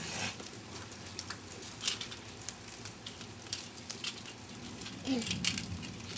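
Rain pattering, with scattered irregular drops tapping sharply. A faint short falling vocal sound comes about five seconds in.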